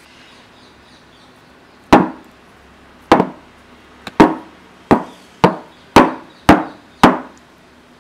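Metal loaf pan full of cake batter being lifted and knocked down on the counter eight times, to knock air bubbles out of the batter. Each knock is sharp with a brief ring. The first comes about two seconds in, and they quicken to about two a second.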